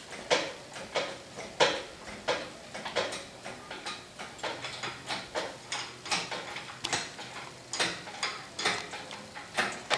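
Hoist lifting a heavy milling machine, with a regular sharp click about every 0.7 seconds as it is worked stroke by stroke.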